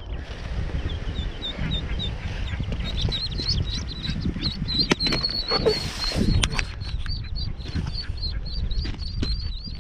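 Ducklings peeping: a long run of short, high-pitched peeps, coming thicker and faster as they are chased and picked up by hand. Underneath are a low rumble and scattered clicks from handling on the track ballast.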